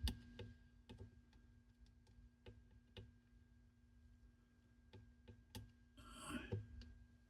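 Near silence broken by faint, scattered small clicks of hand tools and a head-alignment gauge against the cassette deck's head mount while the head's height and tilt are adjusted, over a faint steady hum, with a short soft rustle near the end.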